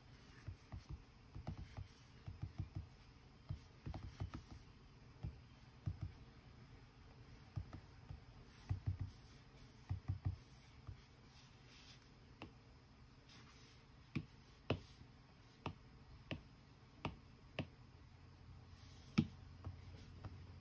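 Faint, irregular taps of fingertips and an Apple Pencil tip on an iPad's glass screen while typing on the on-screen keyboard and selecting menu options; the taps come in quick clusters at first, then as sparser single clicks later on.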